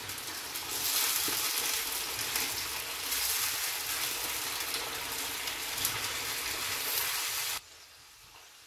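Chicken pieces and garlic-ginger paste sizzling in hot oil in a black iron karahi as they are stirred with a spatula, at the stage of frying the paste through. The sizzle cuts off suddenly near the end.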